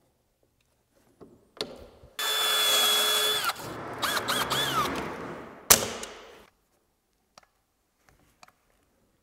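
Cordless drill boring a pocket hole through a Kreg Jig into a timber stair tread: after a knock, the motor runs at steady speed for about a second and winds down, then revs up and down in three short trigger pulses, followed by a sharp click.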